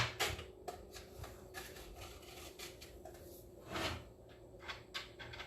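Scattered light clicks and taps of a salt container and measuring spoon being handled while coarse salt is measured out, with one louder knock near four seconds in, over a faint steady hum.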